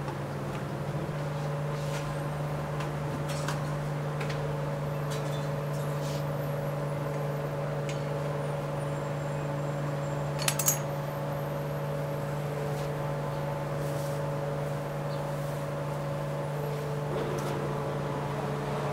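Steady mechanical hum with scattered light clicks and knocks of baking work at a tandoor, and a sharp metallic clink about ten seconds in as the metal hook draws baked lavash out of the oven.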